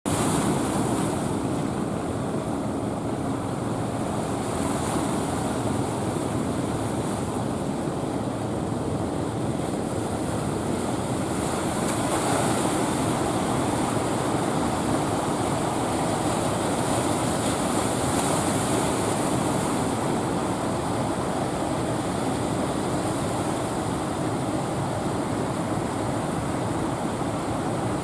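Rough sea surf: a continuous rush of breaking waves that swells every few seconds.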